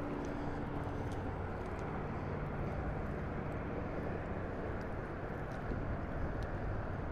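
Steady low rumble of traffic crossing the highway bridge overhead, with a few faint ticks.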